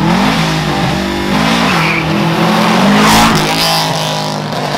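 Subaru Impreza WRX STI race car's turbocharged flat-four engine revving up and down repeatedly as the car passes close by, with tyres squealing. Loudest about three seconds in.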